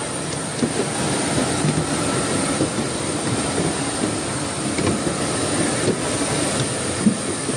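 Steady rushing cabin noise inside an airliner on the ground before departure, with a few small knocks of handling and movement, one louder about seven seconds in.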